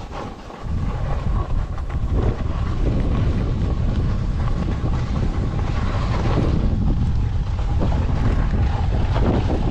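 Wind buffeting a skier's body-worn camera microphone as a loud, steady rumble that starts about half a second in, with skis hissing and scraping over packed snow in several swishes through the turns.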